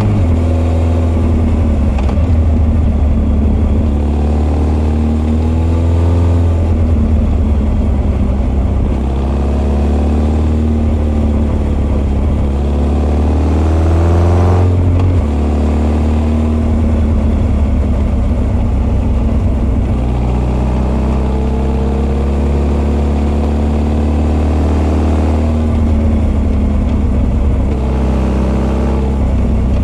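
Honda CB1300 SF inline-four motorcycle engine running under way, its Keihin FCR41 carburettor intake and r's gear Wyvern exhaust both heard. The revs rise and fall several times, with a sudden drop in pitch about fifteen seconds in, as at a gear change.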